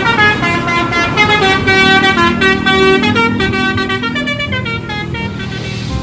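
Telolet bus horn, a multi-tone air horn, sounding a quick tune of short stepped notes. The tune fades about four seconds in, leaving a lower steady hum.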